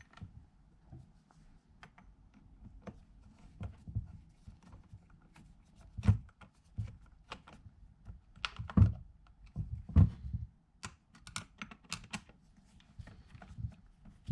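Door-knob hardware being handled and fitted: scattered small clicks and taps, with a few louder knocks about six, nine and ten seconds in.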